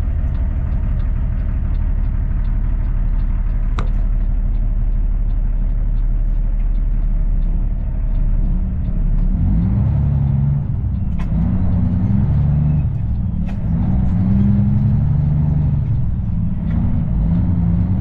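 Kenworth W900L's Cummins ISX diesel heard from inside the cab, idling steadily with a turn signal ticking, then pulling away about halfway through, the engine note climbing and changing as the truck gets under way.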